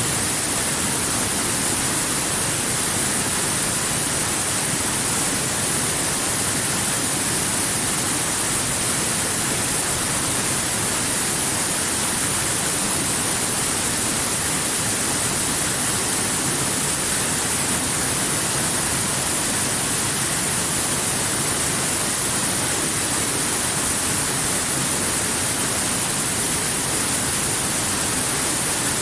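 Waterfall: a steady, unchanging rush of falling water, with a bright hiss high up.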